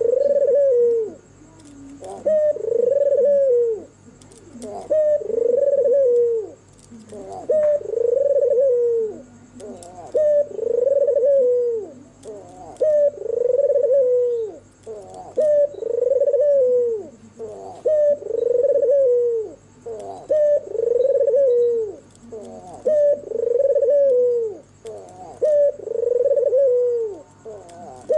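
White red-eyed albino puter (Barbary dove) cooing over and over, about one coo every two and a half seconds, each call rising then falling in pitch.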